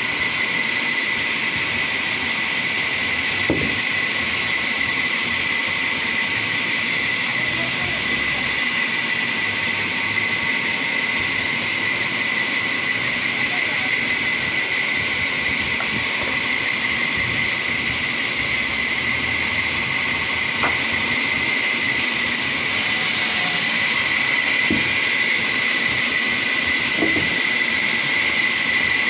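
Sawmill saw running with a steady high-pitched whine, with a few faint knocks.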